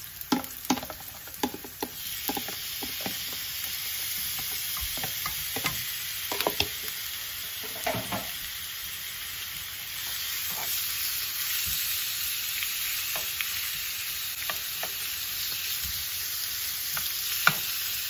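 Chicken pieces frying in hot olive oil with onions in a pan: a steady sizzle that grows louder about two seconds in and again about halfway. Sharp clicks of a utensil against the pan come through the first couple of seconds, with another near the end.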